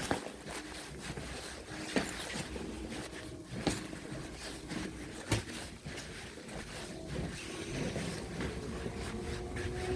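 Train-station background ambience: a steady rumble of noise with scattered clicks and knocks, and a faint steady hum coming in near the end.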